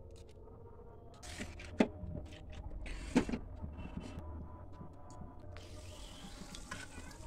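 Two sharp kitchen knocks and clatters of utensils, then, from about three-quarters of the way through, a steady sizzle of hot oil in an aluminium kadai as bay leaves and whole spices go in.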